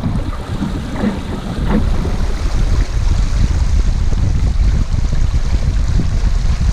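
Wind buffeting the deck-mounted camera's microphone in a heavy, fluttering rumble, over water rushing along the hull of a Snipe sailing dinghy under way in gusty wind.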